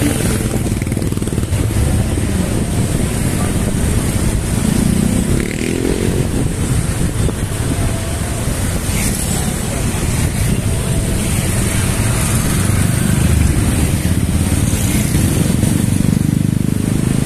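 Motor scooter and motorcycle traffic, engines running close by, under a steady low rumble of road and wind noise from riding along among them.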